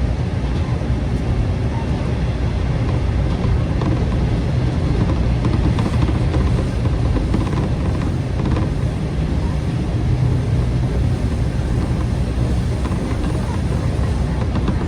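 JR Shikoku KiHa 40/47 diesel railcar under way, heard from inside the car: its diesel engine and wheels on the rails make a steady low drone with no change.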